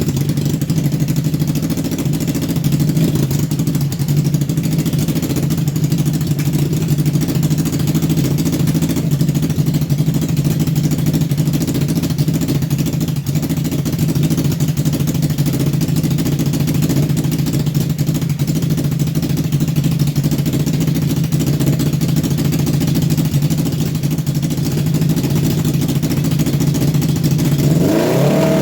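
Honda CB750F air-cooled inline-four engine idling steadily just after being started, on a carburettor that the owner says still has its issues. Near the end the engine pitch briefly rises and falls.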